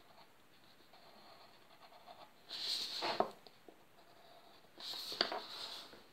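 Ballpoint pen scratching on paper in two short spells of drawing, about two and a half seconds in and again about five seconds in.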